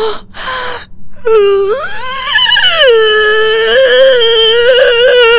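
A woman wailing in distress, a comic crying whimper. Two short breathy sobs, then a long drawn-out wail that rises in pitch, falls back and holds with a waver.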